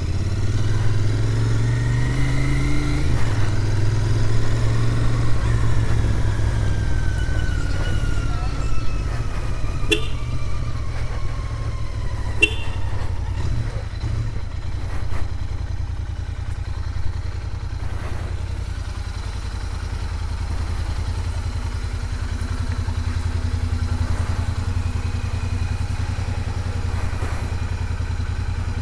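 Royal Enfield Interceptor 650's parallel-twin engine heard from the rider's seat while riding at low speed. It pulls up through the revs in the first few seconds, then its note falls steadily as the bike slows, and it settles into an even, low running for the rest. Two short high chirps come around ten and twelve seconds in.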